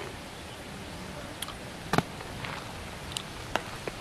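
Eating sounds from ripe jackfruit: a handful of short, sharp smacks and clicks from chewing and pulling the sticky bulbs apart, the loudest about two seconds in, over a steady hiss.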